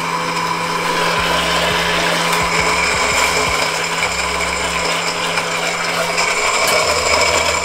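Countertop blender's motor running steadily, whirring a milky liquid in its glass jar, with a constant low hum under the whirr.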